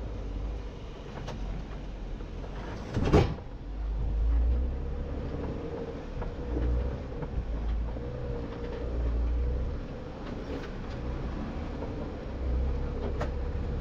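Jeep engine running at low speed, swelling with throttle several times, with scattered knocks and one loud clunk about three seconds in.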